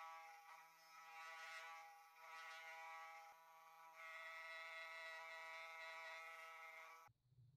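Mini milling machine running an end mill through a steel bracket to cut a slot: a faint, steady whine of several tones from the spindle and cut, which stops abruptly near the end.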